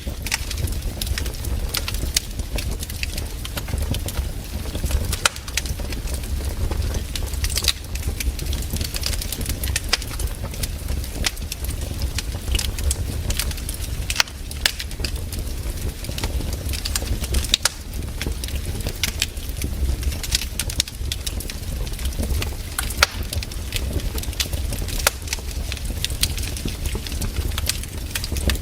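Wood campfire burning, with irregular crackles and sharp pops over a steady low rumble.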